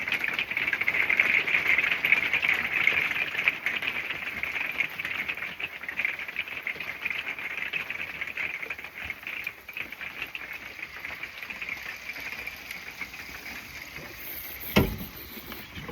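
Light hail pattering on a shield held overhead, heard from underneath: a dense, fast ticking, loudest in the first few seconds and thinning out after. One sharper knock near the end.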